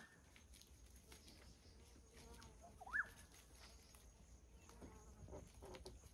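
Faint bird call: a short whistled note that rises and falls, heard once about three seconds in, over near-silent bush.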